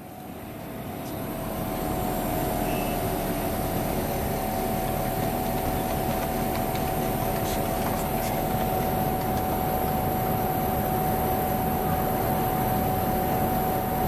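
Outdoor condenser unit of an LG Dual Inverter 1.5-ton split air conditioner running: steady fan noise with a steady mid-pitched tone, getting louder over the first couple of seconds, then holding even.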